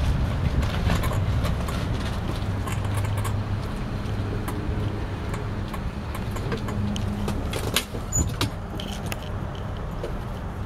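Low, steady rumble of a vehicle engine idling, with scattered light clicks and a couple of sharper knocks about eight seconds in.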